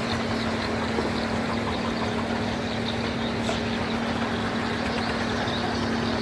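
Speedboat outboard engine running steadily with an even, unchanging tone.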